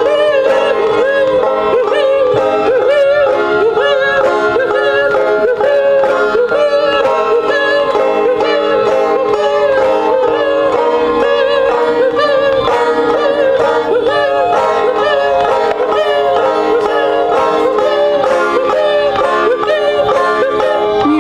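Live band music, an instrumental passage led by fast plucked string notes that bend in pitch.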